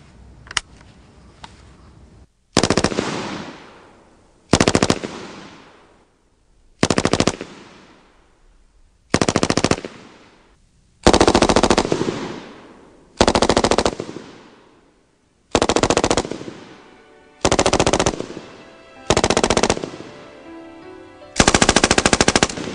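An FN Minimi (M249 SAW) 5.56 mm light machine gun firing about ten short bursts of automatic fire, roughly two seconds apart, each ending in a brief echoing tail. One or two sharp clicks come before the first burst.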